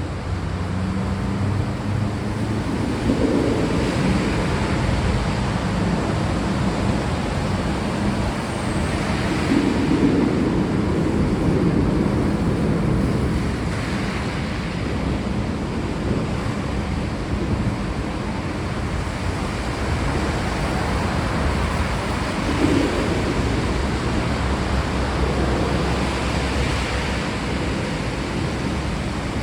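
Steady rain, an even hiss, with low rumbles of distant thunder swelling and fading a few times.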